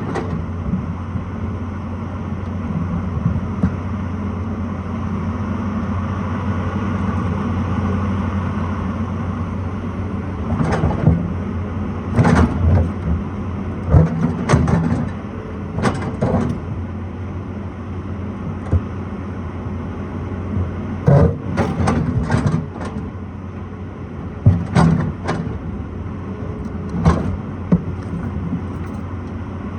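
Excavator's diesel engine running steadily under load, with sharp knocks and scrapes every few seconds, several in quick clusters after about ten seconds, as the bucket works against rock and soil.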